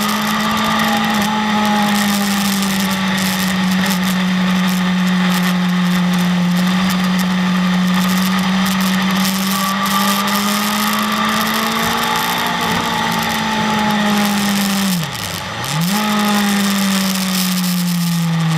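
BMW S1000RR inline-four sport bike engine running at a steady high rev under way, its pitch drifting gently up and down over a steady hiss. Late on, the engine note drops sharply and climbs straight back within about a second.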